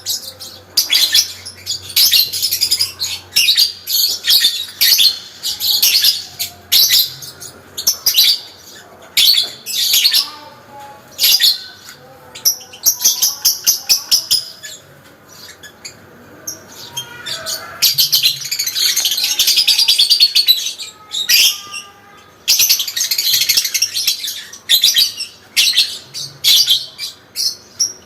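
Parblue lovebird giving its long, fast, high-pitched chattering song (ngekek panjang): bursts of rapid sharp chirps with short pauses, and two longer unbroken runs in the second half.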